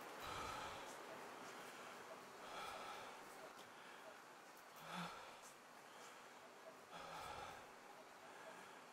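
Faint, slow breathing of a person, four breaths spaced about two and a half seconds apart.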